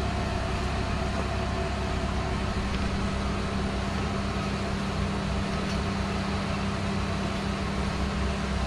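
Steady low hum of a machine running at constant speed.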